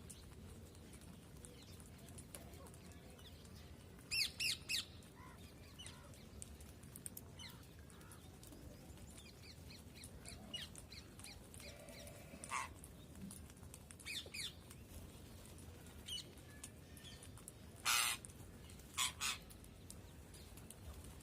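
Parrot squawking in short, harsh calls: a quick run of three about four seconds in, a few single calls after that, and the loudest, longest squawk near the end followed by two shorter ones.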